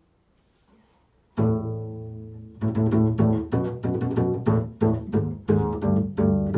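Upright double bass played pizzicato. About a second and a half in, a single low plucked note rings and fades, then a run of plucked notes follows at about three a second.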